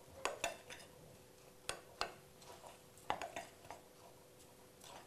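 A utensil stirring dry flour, oats and spices in a glass mixing bowl, clinking lightly against the glass: a scattering of soft, irregular clicks.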